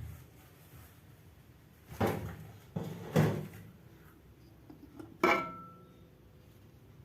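Cookware being handled and set down: two or three clattering knocks around two to three seconds in, then one more about five seconds in that rings briefly with a metallic tone.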